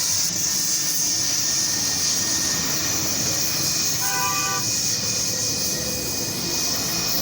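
Welding on a motorcycle exhaust pipe where it joins a bend: a steady, high hiss throughout. About four seconds in, a short tone sounds over it for about half a second.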